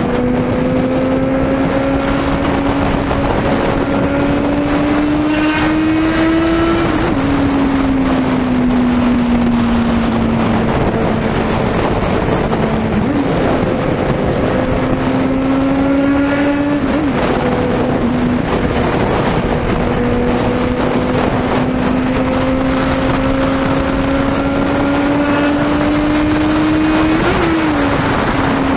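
Suzuki Bandit 650N's inline-four engine and exhaust running hard while riding, the note climbing slowly and then dropping sharply about four times as throttle and gear change, over a steady rush of wind and road noise.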